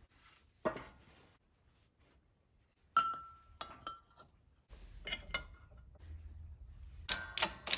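Metal clinks and knocks as a Toyota HF2A transfer case's front output housing, with its new bearing, is handled and set up on a shop press. One clink about three seconds in rings briefly, and a quick run of clicks starts near the end.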